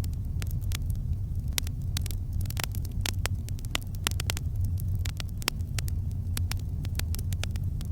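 Campfire crackling: frequent irregular sharp pops and snaps of burning wood over a steady low rumble.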